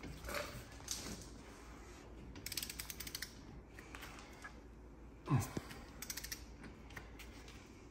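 Long torque wrench ratcheting on a brake caliper bolt: short runs of quick pawl clicks as the handle is swung back, in two spells, with one dull knock about five seconds in.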